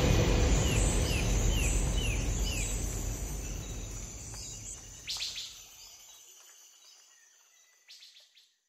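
Birds chirping: a quick run of short, falling chirps, then two brief sharper calls about five and eight seconds in. Under them a low, steady rumble of noise fades out over the first six seconds.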